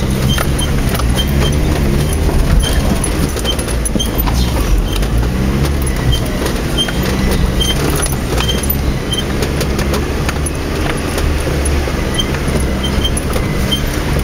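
Vauxhall Frontera Sport's engine running steadily, heard from inside the cab while driving over a rough woodland track, with frequent short knocks and rattles from the body and suspension.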